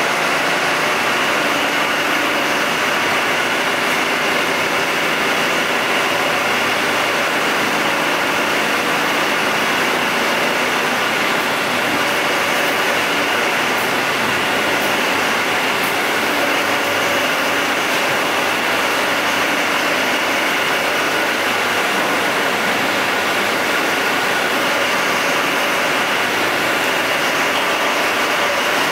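Yuchai 200 kW (250 kVA) diesel generator set running, a steady, even engine noise that holds at one speed throughout.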